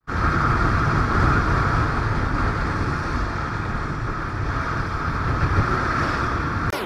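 Royal Enfield Bullet 350 motorcycle riding at highway speed: steady wind rush over the camera's microphone mixed with engine and road noise.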